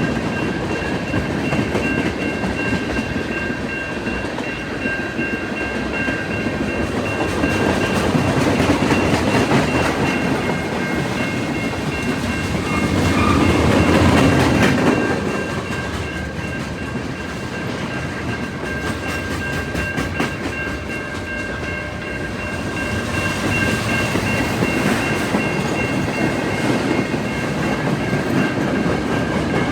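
A train rolling past close by, wheels clicking over the rail joints, loudest about fourteen seconds in. A steady high ringing tone runs under it.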